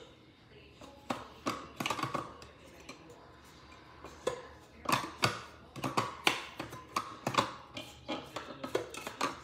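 Irregular light taps, clicks and knocks of the food processor's hard plastic parts being handled on a stone countertop, coming in quick clusters from about a second in.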